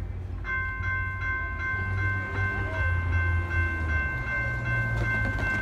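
Railroad grade-crossing warning bell starts about half a second in, ringing a quick repeated ding about two and a half times a second, over a low steady rumble.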